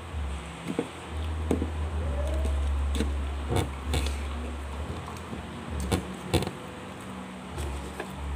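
A person eating rice with his fingers: short, sharp smacks and taps several times over a low rumble that comes and goes.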